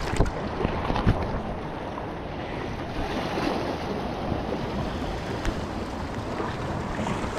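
Choppy sea water washing and splashing against jetty rocks, with wind buffeting the microphone. Two short knocks about a second apart near the start.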